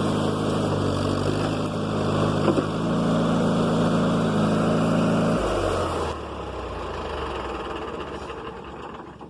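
Backhoe engine running steadily at working revs, then throttled down about five and a half seconds in; after that it runs lower and quieter, fading toward the end.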